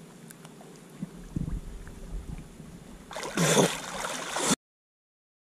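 Lake water sloshing and gurgling around a half-submerged action camera. About three seconds in comes a loud, heavy splashing as a hand-fisherman heaves up out of the water with a big catfish clutched to his chest. The sound cuts off suddenly soon after.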